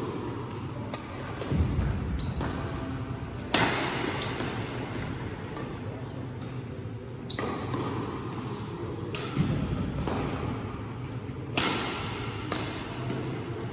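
Badminton rackets striking a shuttlecock back and forth in a doubles rally: a dozen or so sharp hits at irregular intervals, some with a short high ring, echoing in a large hall.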